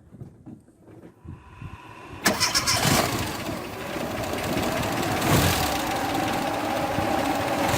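Nissan Sunny's petrol engine being started: a short, faint crank, then it catches suddenly about two seconds in and keeps running.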